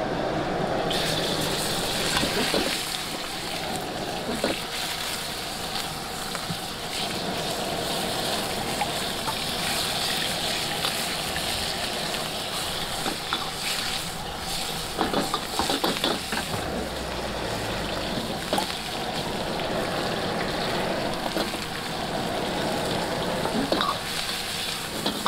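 Seafood fried noodles stir-frying in a wok: a steady sizzle that swells about a second in, with scattered clanks of the spatula.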